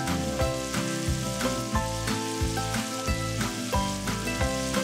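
Diced fatty bacon sizzling and frying in a Dutch oven as its fat renders out, under background music with a steady beat and changing notes.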